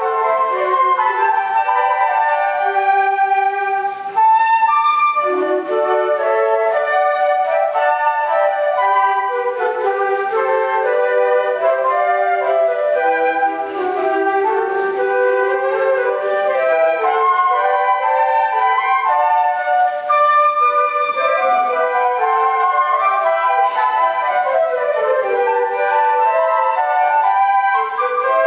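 A flute ensemble playing, several flutes sounding moving lines together in harmony.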